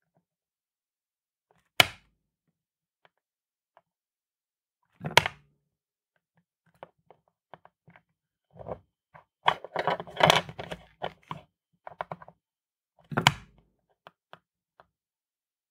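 A small printed circuit board rapped hard on a tabletop, three separate sharp knocks, to jolt molten solder out of its LED holes. Between the second and third knock comes a busy run of smaller clicks and rattles.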